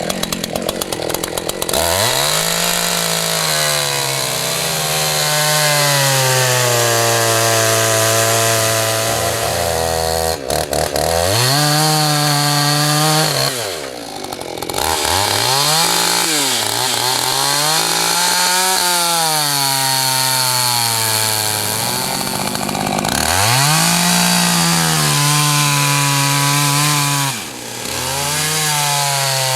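Two-stroke chainsaw running at high revs. Its pitch dips and recovers several times as the throttle eases off and opens again, as in cutting timber.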